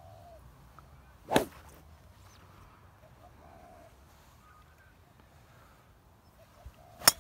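A driver strikes a golf ball off the tee near the end, making one sharp, loud crack. About a second and a half in there is a brief swish.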